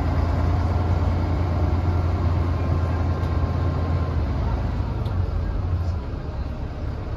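1991 Volvo B10M bus heard from inside the passenger cabin while driving, its straight-six diesel engine making a deep steady drone over road noise. The drone eases off about six seconds in.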